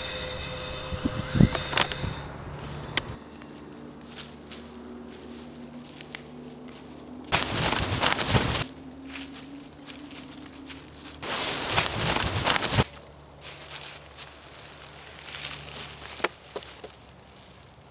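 Hurried footsteps crunching through dry fallen leaves, in two loud bursts of about a second each, about halfway through. A faint, low, steady drone sits underneath.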